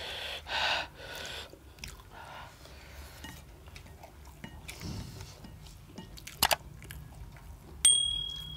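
Close-up slurping and chewing of spicy ramen noodles eaten with chopsticks, with a few sharp clicks. Near the end a short bell 'ding' sound effect rings out and fades, the loudest sound here.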